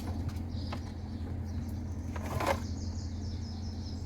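Light clicks and a brief rustle from handling small parts and test leads over a steady low hum. Near the end comes a rapid run of high chirps.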